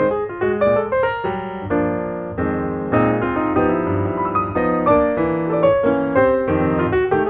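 Piano music: a run of quick melody notes, then held chords for a couple of seconds, then quick notes again.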